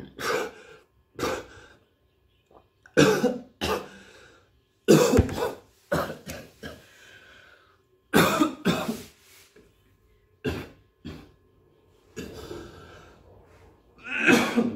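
A man coughing hard and clearing his throat in repeated fits, about a dozen coughs in uneven bouts, choking after gulping a drink.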